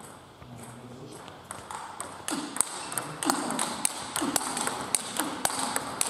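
Table tennis rally: the celluloid-type ball clicking sharply off bats and the table in a quick, regular rhythm, starting about two seconds in after a few scattered taps.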